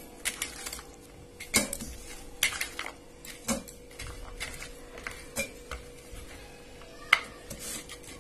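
Scattered light clinks and knocks of garlic cloves, ginger and green chillies being scooped by hand off a stainless steel plate and dropped into a steel mixer-grinder jar, over a faint steady hum.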